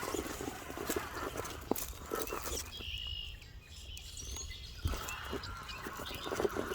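Axial Capra 4WS RC rock crawler working over the course, its tires and chassis knocking and clattering unevenly on rocks and wood.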